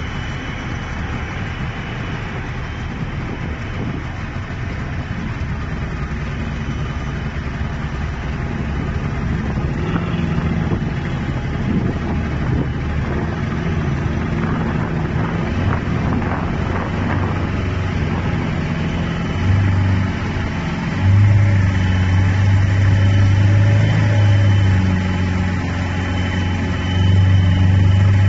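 Boat engines running under way, over a steady rush of wind and water; a low engine drone grows louder in the second half as the anchor boat comes close.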